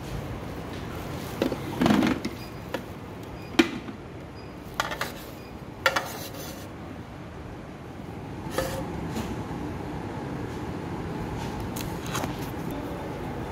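Parts of a Black & Decker juice extractor being handled: scattered knocks and clicks of plastic and metal pieces set down and fitted together, over a steady background hum.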